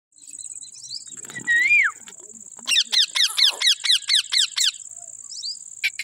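Alexandrine parakeet calling: one loud rising-then-falling whistle, then a rapid run of about nine short, falling chirps. A steady high insect trill runs underneath.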